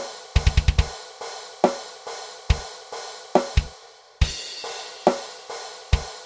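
Death metal drum kit playing a slow, sparse slam groove: a hit about every second, a quick run of kick drum strokes about half a second in, and a cymbal crash about four seconds in.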